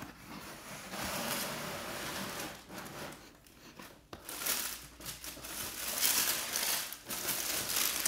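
Cardboard shoebox being opened and the white tissue paper inside unfolded by hand: irregular paper rustling and crinkling that comes and goes in swells.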